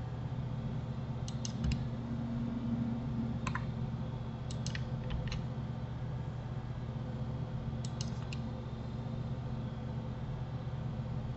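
Computer mouse and keyboard clicks, in small clusters of two to four a few seconds apart, over a steady low hum.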